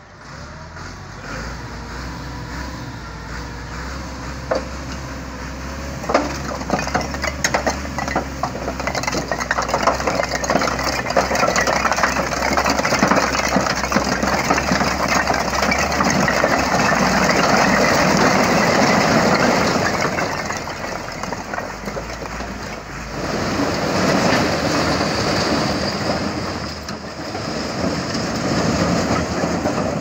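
Tractor engine running while its tipping trolley dumps a load of fired clay bricks, which slide off and clatter onto the ground in a long, dense rush. The clattering dies down well before the end, leaving broad rushing noise.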